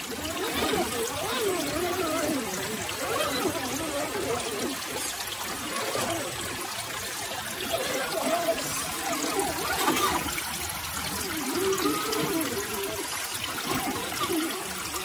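Shallow creek water trickling and burbling over rocks, a steady wavering babble.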